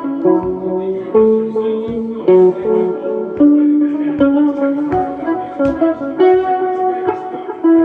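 Guitar playing a melody of single picked notes that change about every half second, struck in a steady rhythm.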